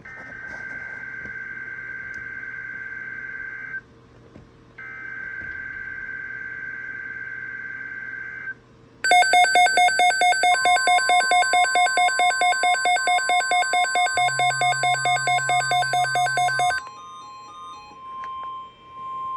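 Emergency Alert System alert tones. Two steady electronic beep tones of about four seconds each are followed by a louder, rapidly pulsing multi-tone alert signal of about four pulses a second from about nine seconds in. A fainter steady tone lingers after it.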